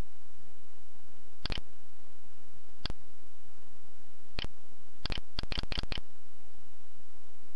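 Computer mouse button clicking: a double click about a second and a half in, single clicks near three and four and a half seconds, then a quick run of clicks a little after five seconds as the list's scroll arrow is clicked repeatedly.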